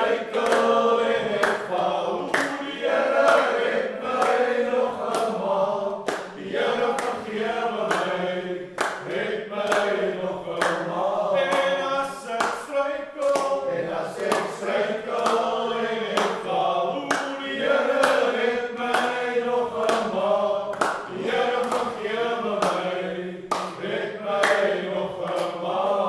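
A group of voices singing together as a choir, with sharp beats at a steady rhythm.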